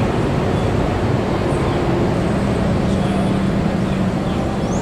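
Steady engine and road noise heard from aboard a moving odong-odong, with a low hum held through the middle.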